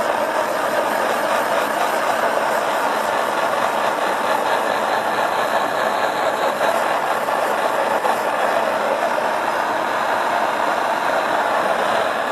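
Hand-held propane torch burning with a steady rush of flame while heat-treating a bamboo stick.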